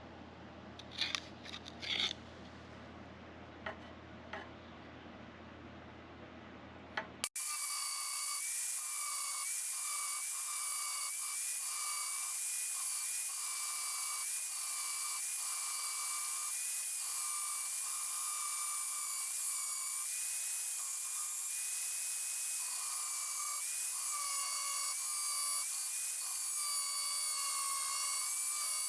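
A few light clicks and scrapes, then, about seven seconds in, an angle grinder starts suddenly and runs on cutting 2.3 mm steel plate. It gives a high whine that dips and wavers in pitch as the disc bites.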